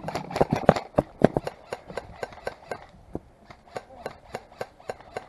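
Footsteps of a player moving quickly on foot, a sharp step every quarter second or so, louder in the first second and a half and softer after.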